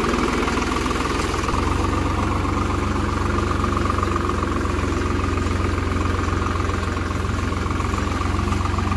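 Swaraj 735 FE tractor's three-cylinder diesel engine running steadily as the tractor drives along on steel cage wheels.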